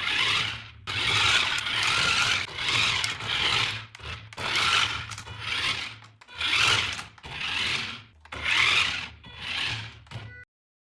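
A run of rubbing, scraping strokes, each lasting about a second, over a low steady hum; the sound cuts off suddenly near the end.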